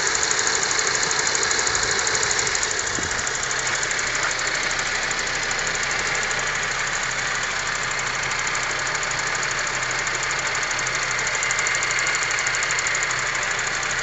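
Honda Civic sedan engine running steadily with a rapid, even knocking from inside the engine that keeps pace with engine speed.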